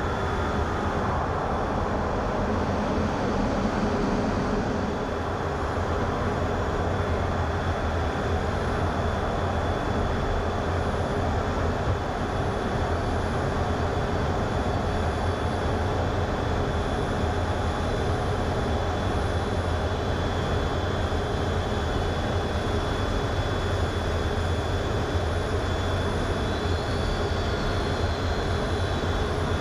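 Jet fighter in flight, heard from inside the cockpit: a steady deep engine drone under an even rush of air, with a thin, steady high whine.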